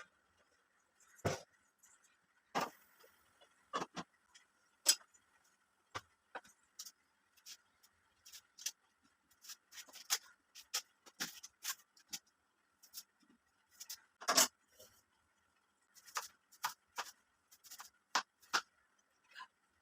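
Knife cutting banana stem on a chopping board: short, irregular knocks and clicks, one or two a second, with a faint steady high tone underneath.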